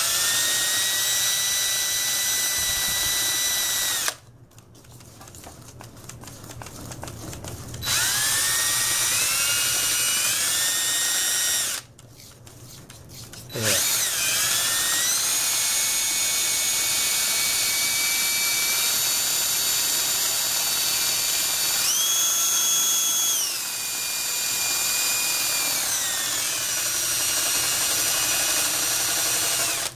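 Handheld drill spinning a whisk attachment through cake batter in a metal bowl, its motor whine running in three spells with two pauses of a few seconds, the first about four seconds in. Near the end it speeds up briefly, then drops back.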